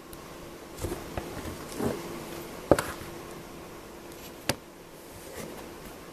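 Room air conditioner running with a steady low hum, broken by several short sharp clicks and ticks; the loudest comes a little before the middle and a single sharp one about two seconds later.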